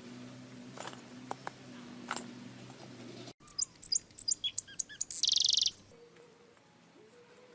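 Bird chirping: a run of quick high chirps, then a loud buzzy trill lasting about half a second. Before it, a low steady hum with a few clicks ends abruptly about halfway through.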